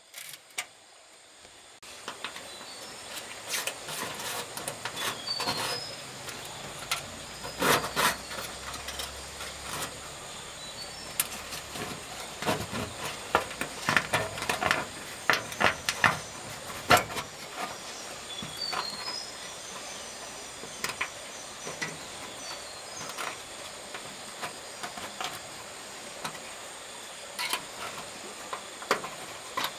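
Irregular knocks and taps, densest in two clusters a quarter and about half way through, over a steady high hiss.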